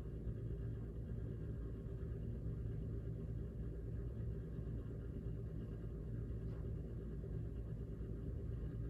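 Lennox Pulse 21 gas furnace's inducer (purge blower) running with a steady low hum during the start-up sequence, before ignition.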